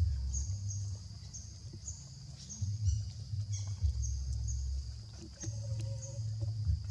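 Outdoor ambience: a low rumble of wind on the microphone, the loudest sound, rising and falling, with a short high chirp repeating about twice a second.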